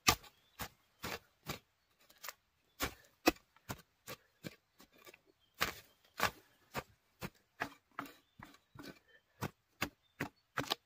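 Small hand mattock chopping into loose soil again and again, about two strikes a second at an uneven pace, some strikes sharper than others, as it digs out winter bamboo shoots.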